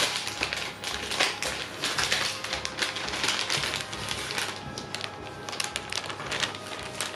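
Plastic packaging crinkling and rustling as it is handled, a dense run of irregular crackles and clicks.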